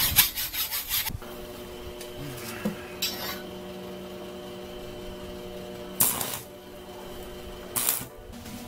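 Hacksaw cutting a thin metal tube, about six quick rasping strokes in the first second. Later, short bursts of noise from a stick arc welder striking and running an arc, the last one near the end.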